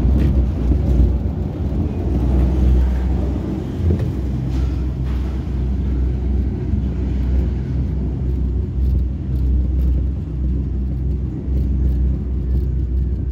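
Steady low rumble inside a ropeway cable-car cabin, its loudness rising and falling slightly.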